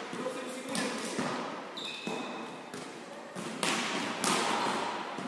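Volleyballs being hit and bouncing in an echoing sports hall: several sharp thuds a second or more apart, each with a reverberant tail. There is a brief high squeak about two seconds in.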